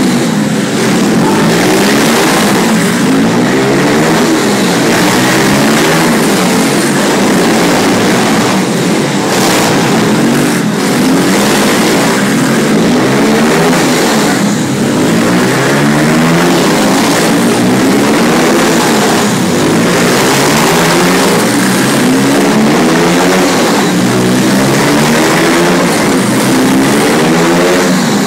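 Several pit bike engines revving loudly together, their pitch climbing and dropping again and again as the riders accelerate and back off around the corners.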